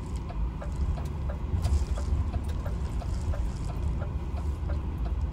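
Truck engine and road rumble heard inside the moving cab, with a steady light ticking a little over twice a second.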